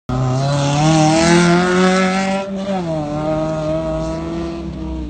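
Small 4x4 SUV's engine revving hard under load, its pitch climbing for about two and a half seconds, dipping briefly, then pulling steadily as it drives on loose dirt.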